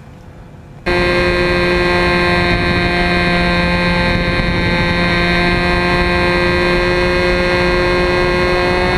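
Two-stroke glow engine of an RC Telemaster model plane running loud and steady at an even pitch during a high-speed fly-by, heard close up from the camera mounted under the plane. It cuts in suddenly about a second in.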